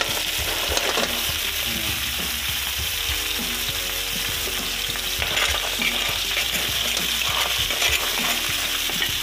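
Tampayan clams in their shells sizzling in a hot pan of sautéed garlic, ginger and tomato, with a steady frying hiss and scattered clicks of shells knocking against each other and the pan.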